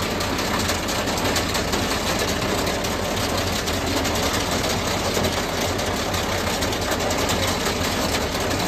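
Tractor engine running steadily while towing a silage feed-out wagon, with a constant fast mechanical clatter from the wagon's running gear.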